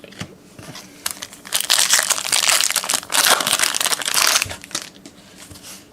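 Crinkling of a trading-card pack wrapper being handled, loudest for about three seconds in the middle.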